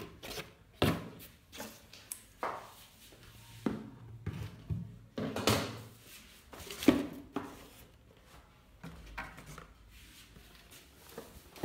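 Cardboard packaging being handled: a cardboard box and the flaps of a shipping carton moved and set down, making a series of separate knocks and scrapes, the loudest about seven seconds in.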